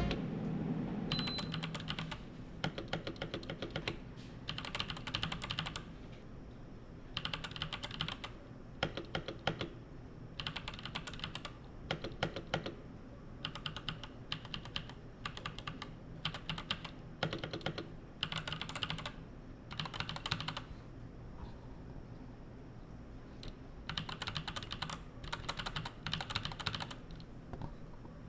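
Typing on a 61% mechanical keyboard fitted with TECSEE Purple Panda tactile switches (long POM stems), in runs of quick keystrokes broken by short pauses.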